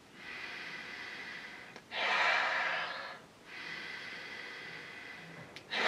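A man sniffing deeply at a glass of beer held under his nose: three long breaths through the nose, the middle one louder.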